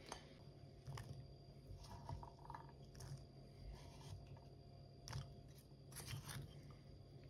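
Faint clicks and scrapes of a spoon in a ceramic bowl as couscous salad is mixed, over a low steady hum.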